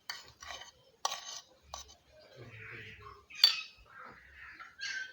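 A fork clinks and scrapes in a bowl while mashing boiled fish. There are several sharp clinks, the loudest about three and a half seconds in, with softer scraping between them.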